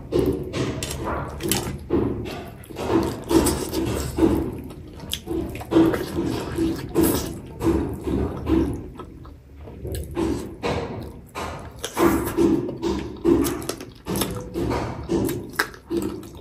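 Close-miked chewing of chicken meat: wet smacking and clicking of the mouth in a steady rhythm of about two to three chews a second, pausing briefly a couple of times.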